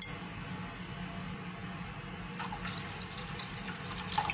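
Vinegar being poured into water in a bowl: a steady, even pouring of liquid, with a few light clicks near the end.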